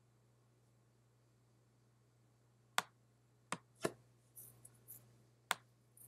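Quiet room tone for about the first half, then four sharp, irregularly spaced clicks of a computer mouse being worked, with faint soft rustles between them.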